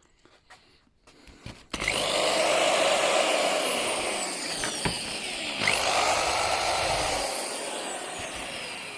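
Black & Decker electric drill's motor run up twice: it starts with a rising whine about two seconds in, drops off briefly near the middle, starts again and then slowly spins down as the trigger is let go. A few faint clicks come before it.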